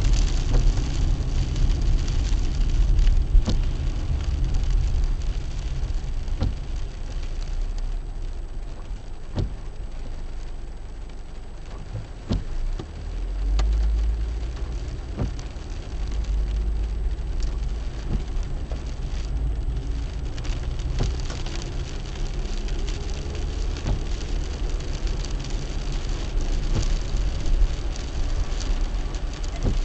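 A car driving in the rain: steady road and tyre noise on a wet road, with short clicks about every three seconds. The noise eases for a few seconds around the middle, then a deep rumble rises again.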